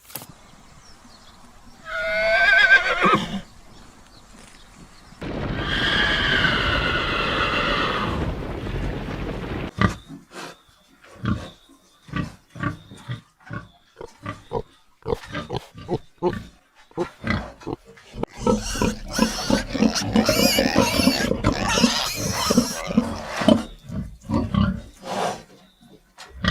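A horse whinnies once, briefly, then a long call follows. From about ten seconds in come many short grunts, typical of pigs, crowding together near the end.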